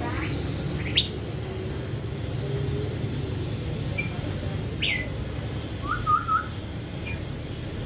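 A young caged hỏa tiễn songbird giving a few sharp, separate chirps and then a short wavering warble about six seconds in, over a low steady rumble.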